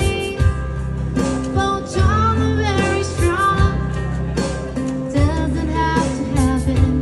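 A song playing: a singing voice carries the melody over strummed acoustic guitar and a steady bass line.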